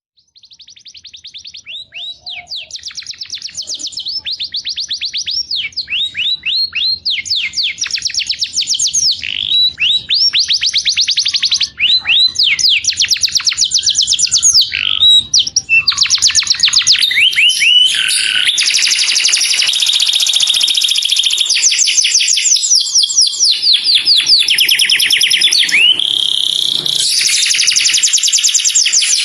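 Canary singing: a continuous run of fast trilled phrases, each a rapid string of high, curving notes. The song fades up over the first several seconds and becomes denser and more continuous in the latter part.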